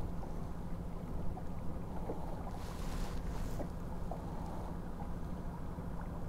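Wind on the microphone aboard an aluminium fishing boat on open water, a steady low rumble with a faint low hum under it, a few light ticks, and two brief hissing swells about halfway through.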